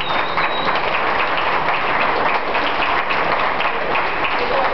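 Spectators' crowd noise in a large hall, a steady din of clapping and indistinct voices.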